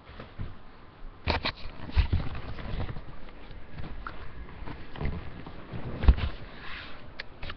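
Handling noise from a webcam being picked up and moved close against clothing: irregular knocks and thumps with rustling of fabric on the microphone. The loudest knocks come about a second in, at two seconds and around six seconds.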